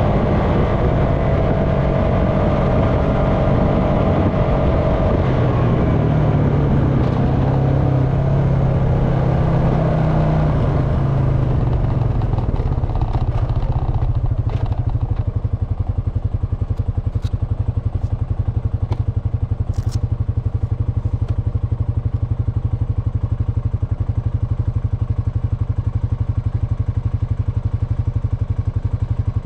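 Honda Foreman ATV's single-cylinder engine running under way, its pitch shifting up and down, then dropping to an even idle as the ATV comes to a stop about halfway through. A few sharp clicks sound just after it stops.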